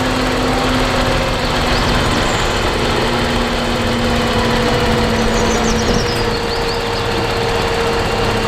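A vehicle engine running steadily with a low hum, which starts and cuts off abruptly.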